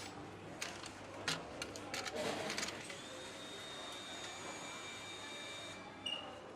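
Engine assembly workshop sounds: a few sharp clicks and knocks of tools and metal parts in the first seconds, then a steady high machine whine for about three seconds.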